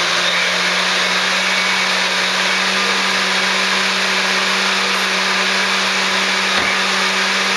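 Countertop blender running steadily at high speed, blending frozen fruit and juice into a smoothie: a loud, even rushing whir with a steady low hum underneath.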